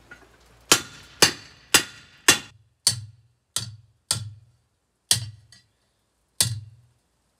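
Hand hammer striking hot steel on an anvil: nine sharp, ringing blows, about two a second at first and then further apart, flattening the curve out of a lawnmower blade.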